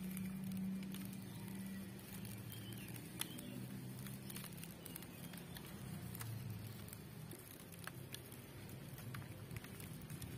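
Wood fire crackling under a pan of simmering coconut-milk curry, with scattered sharp pops over a steady low rumble.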